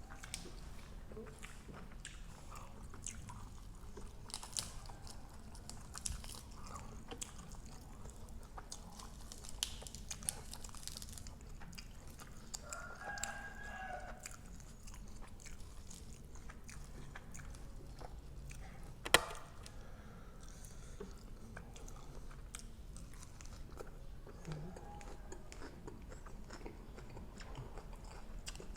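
A person chewing and biting grilled pork neck salad close to the microphone, with scattered small mouth clicks and one sharper click about nineteen seconds in.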